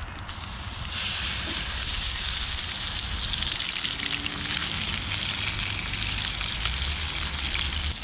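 Raw chicken pieces sizzling in hot olive oil in a camping frying pan. The sizzle starts just after the start, grows loud about a second in as the pieces go into the oil, and then holds steady.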